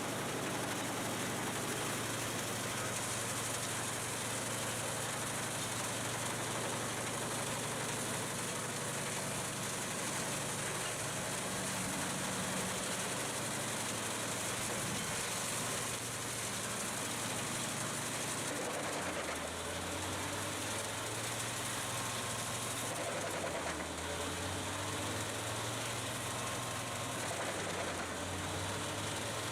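Heavy forestry machine's engine running under load with a steady mechanical din; in the second half its low hum shifts up and down in pitch.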